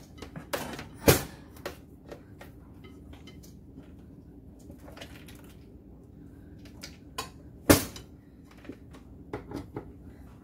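Kitchen items being handled and set down on a granite countertop: scattered light clacks, with two sharp knocks, one about a second in and one about seven and a half seconds in.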